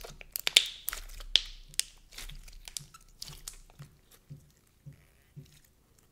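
Stiff, heavily activated white slime (Momo Slimes' Lychee Chew) kneaded and stretched in the hands, crackling with a quick run of sharp pops. The pops then thin to softer ones about twice a second and fade out near the end.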